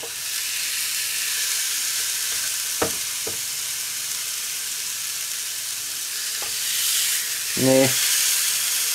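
Raw turkey cutlets sizzling on the hot ribbed plates of an OptiGrill contact grill. The sizzle is a steady hiss, with two light clicks about three seconds in, and it swells near the end as another cutlet goes down on the plate.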